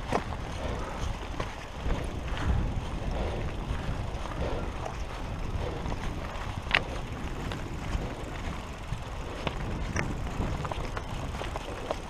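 Wind buffeting a helmet camera's microphone, with scattered clicks and crunches from footsteps and mountain bikes being pushed over stony ground. One sharper click stands out a little past the middle.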